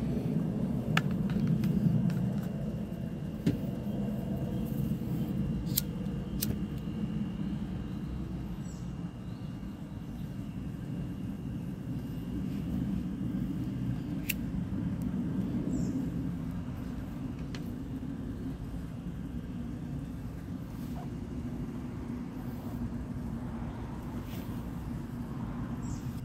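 Kerosene pressure stove burning with a steady low rushing sound, a little louder in the first few seconds, with a few sharp clicks here and there.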